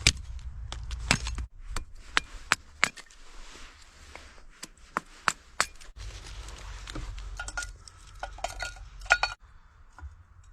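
Irregular sharp clicks, knocks and clinks of wood and metal as a small camp stove is loaded with kindling and lit. The clicks come in clusters and grow sparse near the end.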